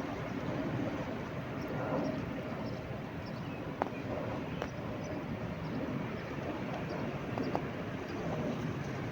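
Sea surf washing ashore: a continuous rushing noise that swells and eases, with a few short sharp clicks around the middle.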